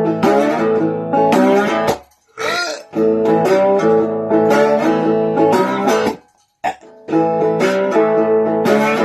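Strummed guitar music that breaks off briefly twice, about two and six seconds in.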